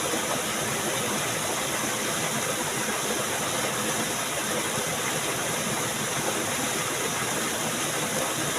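Steady rushing of flowing water, an even unbroken noise.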